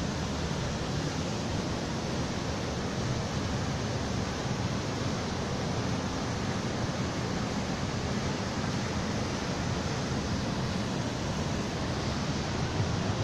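Steady rush of the Radovna river's whitewater pouring down a small waterfall and rapids.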